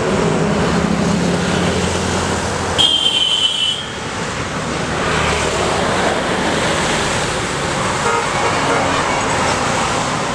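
Highway traffic passing close by: lorries, motorcycles and a bus, with a low engine drone in the first two seconds. A vehicle horn honks once, for about a second, about three seconds in, and is the loudest sound.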